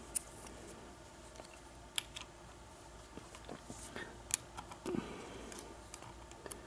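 Small metal clicks and ticks of a lock pick and tension wrench working in a Kwikset pin-tumbler lock's keyway during single-pin picking, faint and irregular, a few seconds apart.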